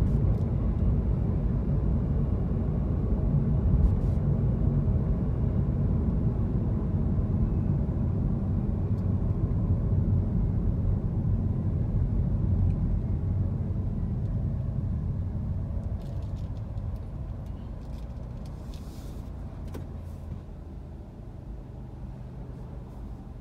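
Car driving in city traffic, heard from inside the cabin: a steady low rumble of engine and road noise that fades gradually over the last several seconds as the car slows to a stop.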